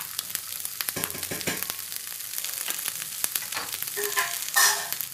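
Shallots and garlic cloves sizzling and crackling in a little oil in a non-stick frying pan. There is a short louder burst near the end.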